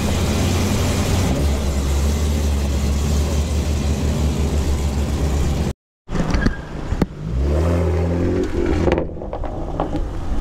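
A car engine runs with a deep, steady low rumble as a 1950s car pulls away. It cuts off abruptly, and a second car then accelerates past, its engine note rising in pitch.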